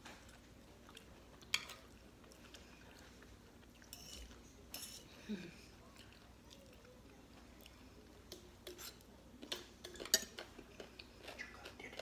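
Metal fork and spoon clinking and scraping on a plate of shredded-turnip som tam, with a few sharp clinks, and quiet chewing of the crunchy turnip salad.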